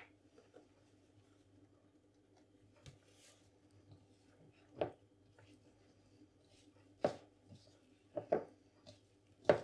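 Hands pressing and working soft scone dough in a ceramic bowl, with a few short knocks as the bowl bumps the wooden board, the first about five seconds in and several more near the end. A faint steady hum runs underneath.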